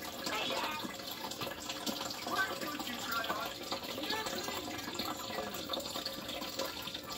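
Aquarium water running steadily, as from a turtle tank's filter, with faint muffled voices in the background.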